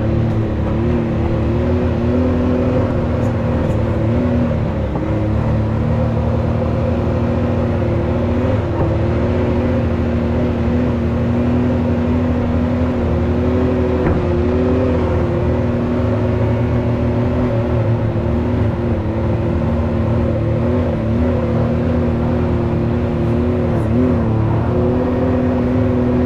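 A Can-Am X3 side-by-side's turbocharged three-cylinder engine running at a fairly steady speed, pitch holding with small dips and bumps, as the machine crawls up a rough trail.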